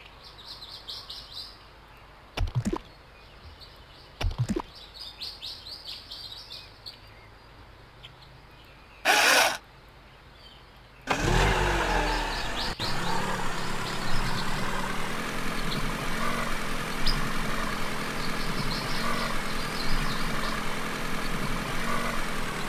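Bird chirps with two sharp clicks and a short loud burst, then about halfway in a loud, dense, steady mechanical sound starts and carries on.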